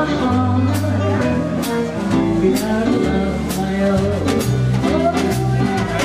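Live jazz band playing: double bass notes stepping along underneath, a drum kit with regular cymbal strokes, and a gliding melody line on top.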